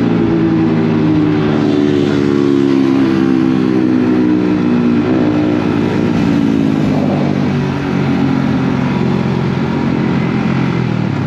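Yamaha MT-15's single-cylinder engine running loud through an aftermarket exhaust while riding. The engine note falls slowly over the first five seconds, then rises and falls with the throttle.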